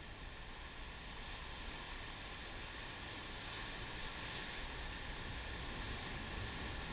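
Sea surf breaking and foaming over black volcanic rocks, a steady rush of churning water that swells a little in the second half as a wave washes over the rocks.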